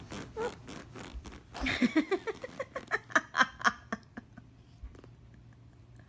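A person's voice making a quick run of short pitched sounds, about five or six a second, for about two seconds, then fading to faint background near the end.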